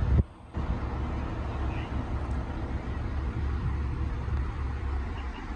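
Steady low machinery rumble, cutting out briefly just after the start.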